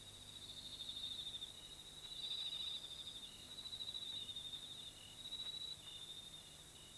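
Crickets trilling in a steady, high, rapid chorus. Shorter, slightly lower chirps from a second insect recur every half second or so.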